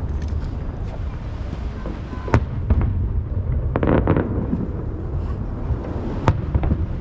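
Aerial fireworks over the sea: two sharp shell bursts, a little over two seconds in and again near the end, with a short run of crackling around the four-second mark, all over a steady low rumble of booms echoing off the surrounding hills.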